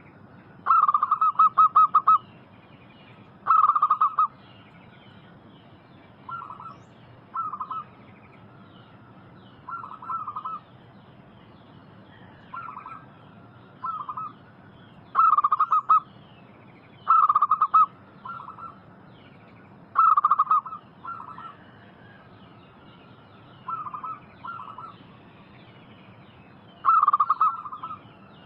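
Zebra dove cooing: short phrases of quick, rattling coos repeated every one to three seconds, some loud and some fainter. Faint twittering of small birds runs behind.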